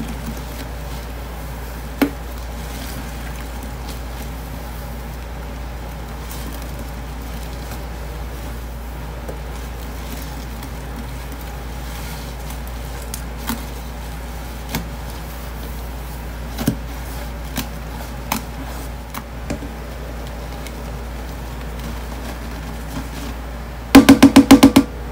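Thick wet paste squelching as a paste-soaked sponge is squeezed and worked by gloved hands, with occasional short wet clicks. Near the end comes a rapid run of about eight loud knocks in a second: a canister of powdered cleanser being shaken and tapped to empty it over the paste.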